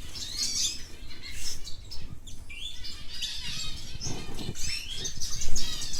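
A group of canaries chirping and twittering, with many short, overlapping calls and quick trills.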